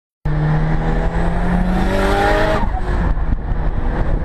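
Mitsubishi Evo's turbocharged four-cylinder engine accelerating hard, heard from inside the cabin. Its pitch climbs steadily, with a rising hiss, for about two seconds and then drops abruptly at a gear change. After that it runs on steadily under road and wind noise.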